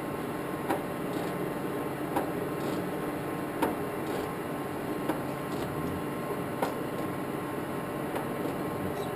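Blanchard 18-36 rotary surface grinder running with a steady hum, with a short sharp click about every one and a half seconds from the wheel head's ratchet down feed stepping the head down.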